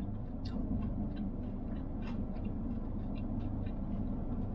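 Chewing a mouthful of crispy fried chicken: faint crunchy crackles every half second or so over a steady low hum.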